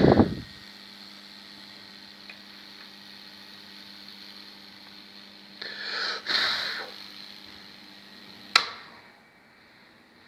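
Homemade microwave-oven-transformer wood burner running: a steady electrical hum, with a loud burst at the start and crackling, sizzling bursts about six to seven seconds in as the high voltage burns through the wood. A sharp snap comes near the end, and then the hum stops.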